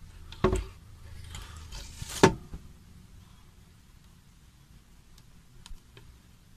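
Handling noise from the filming phone rubbing against cloth, with two sharp knocks, about half a second in and just after two seconds, the second louder. A few faint ticks follow.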